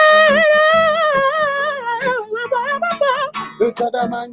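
Male voice holding a long wavering sung note without words, then a few shorter melodic phrases over acoustic guitar, the singing fading toward the end.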